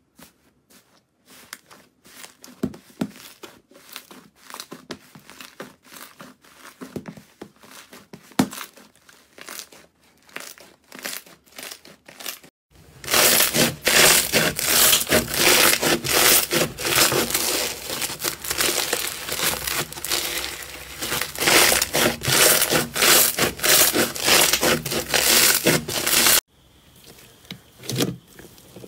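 Slime being squeezed and poked close to the microphone, making crackling, popping and squishing sounds. About 13 seconds in it cuts to a much louder, denser crackle, and near the end it drops back to sparse clicks.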